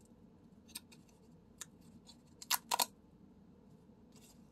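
Paper tabs of a pull-tab lottery ticket being torn open by hand: a few short crisp snaps and rips, the loudest pair a little past halfway.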